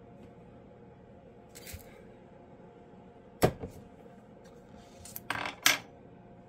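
A few light clicks and knocks of small hard objects being handled, the sharpest and loudest about three and a half seconds in and a quick cluster near the end, over a faint steady hum.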